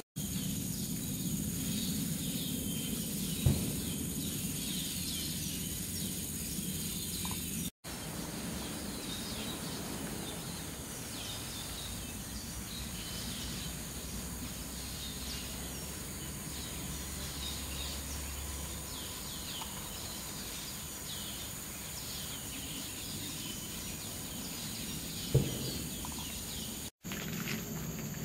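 Forest ambience: a steady high insect drone with many short, falling bird chirps over it. There are two sharp knocks, about 3.5 seconds in and near the end, and the sound cuts out briefly twice.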